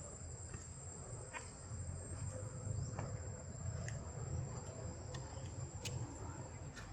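Insects, crickets or cicadas, keeping up a steady high-pitched drone over a low rumble, with a few faint clicks.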